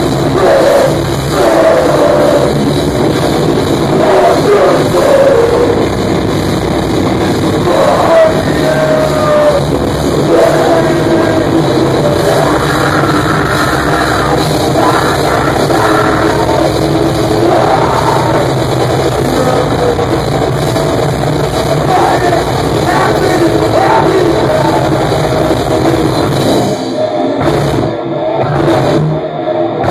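Heavy metal band playing live: electric guitars, bass and drum kit at full volume, with a vocalist's vocals over them. Near the end the band drops out briefly a few times in short stop-start breaks.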